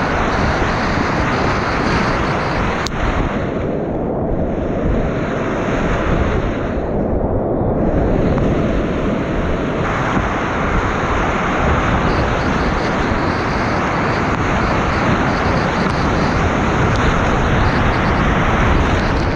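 Whitewater rapids rushing loudly and steadily around a kayak running them, with water hitting the microphone. The sound is briefly muffled twice in the first half.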